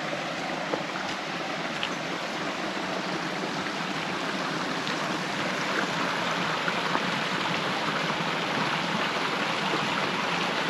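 Creek water running over rocks: a steady rushing babble that grows slightly louder toward the end.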